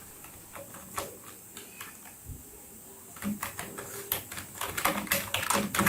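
Typing on a Logitech MK240 wireless keyboard's low-profile keys: a few scattered keystrokes at first, then a quick run of key clicks in the second half.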